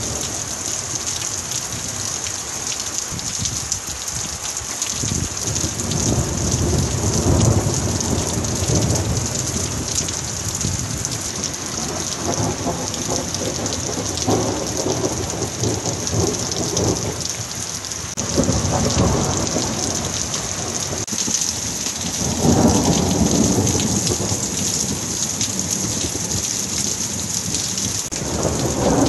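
Heavy thunderstorm downpour: a steady hiss of heavy rain with water running and dripping off the roof edge, overlaid by several long rolling rumbles of thunder that swell and fade, the strongest about three quarters of the way through.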